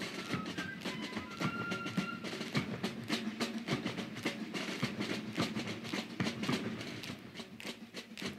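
Raindrops dripping and splashing into a shallow puddle close to the microphone, many quick, irregular little plinks. Background music with held notes fades out in the first two seconds.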